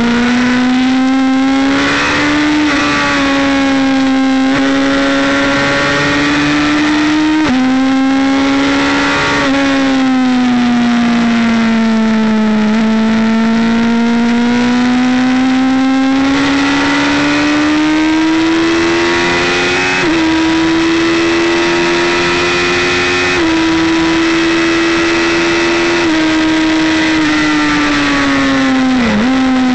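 Motorcycle engine under hard throttle, heard from an onboard camera at racing speed: its pitch swells and sags smoothly through corners and jumps abruptly at several gear changes, with a sharp dip near the end.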